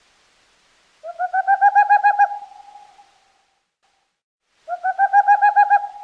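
Boreal owl song: two rapid trills of about a dozen hollow hoots each, roughly nine hoots a second. Each trill swells in loudness at the start and fades out over about a second.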